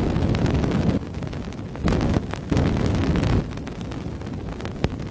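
Sonified space recording presented as the sound of Saturn's rings: a deep, noisy rumble that swells and fades, with many scattered sharp clicks and crackles.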